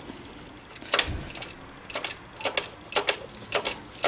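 Rear brake pedal of a Suzuki XF650 Freewind pumped in quick presses while its brake line is bled, giving sharp clicks in pairs about twice a second, with a low thud about a second in.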